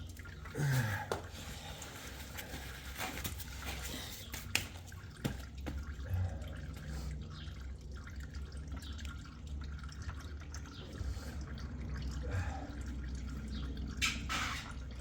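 Engine oil dripping and trickling as the drain plug of the oil pan is turned out by hand, with small clicks from the handling. A steady low hum runs underneath.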